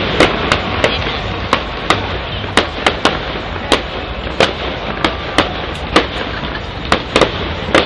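Fireworks display: a rapid, irregular string of sharp bangs from bursting shells, about two a second, over a steady background of noise.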